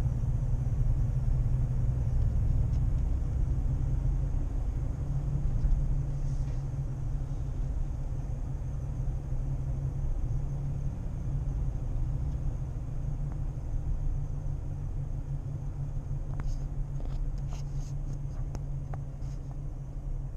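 Ford Ranger Raptor driving, heard from inside the cab: a steady low rumble and drone, with a few faint clicks near the end. This is the strange noise the owner is trying to catch. It persists even after the rear differential was replaced under warranty, and its cause is unknown.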